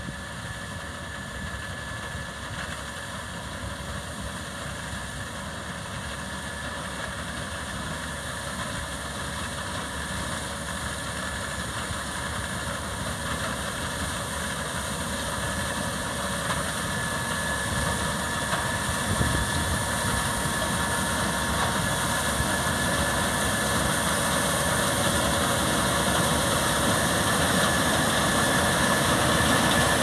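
Case IH 5140 Axial-Flow combine harvesting rapeseed: its diesel engine and threshing machinery run steadily with a thin, high, steady whine over the engine. The sound gets steadily louder as the combine approaches.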